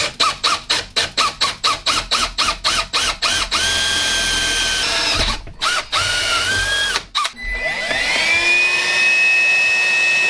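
Milwaukee cordless drill with a twist bit boring into a countertop: first quick pulses of the trigger, about five a second, each a short whine, then two longer steady runs. About seven seconds in, a cordless stick vacuum starts, its motor whine rising and then holding steady.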